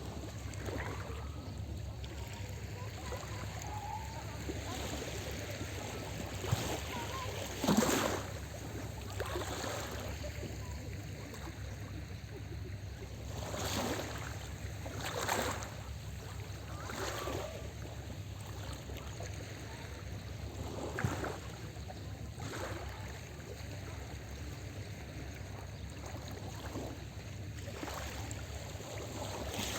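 Small sea waves lapping and splashing on the shore, a series of separate splashes with the loudest about eight seconds in, over a steady low rumble.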